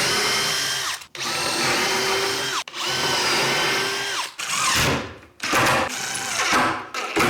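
Power drill driving screws into a wood cabinet in several trigger runs of a second or so each; the motor whine rises as it spins up and drops as each run stops.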